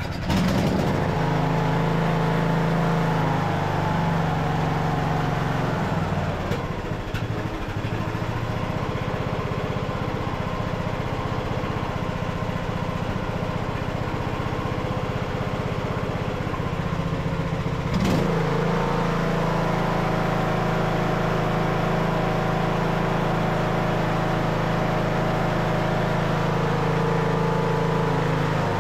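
Craftsman LT2000 riding mower engine running steadily just after being started on choke with a new carburetor fitted. Its speed drops about four to six seconds in, and there is a sharp snap about eighteen seconds in, after which the speed changes again.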